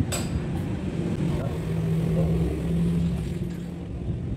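Low, steady rumble of a motor vehicle engine running nearby, a little louder in the middle, with a sharp clink right at the start.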